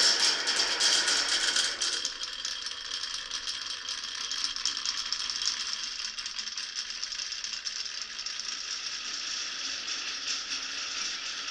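Glass marbles rolling and clattering along a wooden marble run: a dense, steady rattle of small clicks, louder for the first two seconds.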